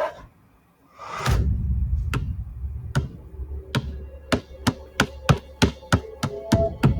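A basketball bouncing on a hard floor, slow at first and then dribbled steadily at about three bounces a second, over a low rumble in a film soundtrack.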